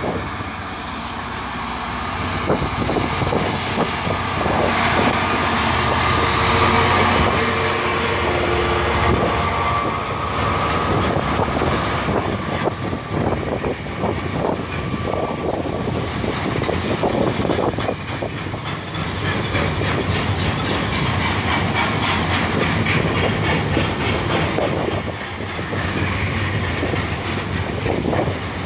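Diesel freight locomotive passing close by, loudest about seven seconds in, followed by a long train of loaded steel-coil wagons rumbling and clacking over the rails.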